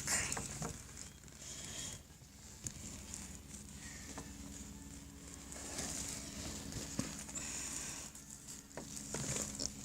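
Faint, steady drone of a distant helicopter, with light rustling and scattered clicks.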